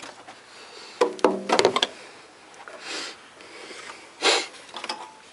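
Handling noise of work in a car's engine bay: scattered clicks and knocks, with a short hissing noise about three seconds in and another just after four seconds.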